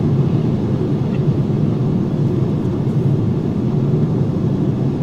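Steady road noise inside the cabin of a 2013 Citroën C4 sedan cruising at about 80 km/h: an even, low rumble of tyres, wind and engine, which reads about 70 dB on a sound meter.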